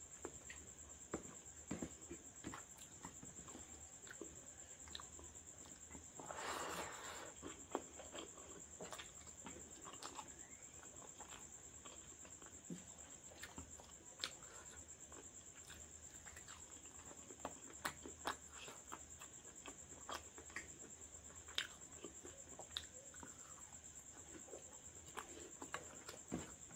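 Faint, scattered wet clicks and smacks of a person eating with the hand: fingers mixing and squeezing rice on a plate, and chewing and mouth sounds, with a louder rustle about six seconds in. A steady high-pitched whine runs underneath.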